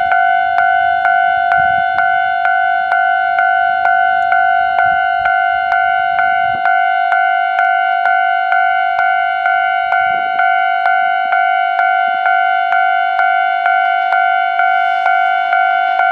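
Japanese railway level crossing's electronic warning bell ringing steadily, a clear ding repeating a little over twice a second. Near the end a faint rushing sound grows in under it.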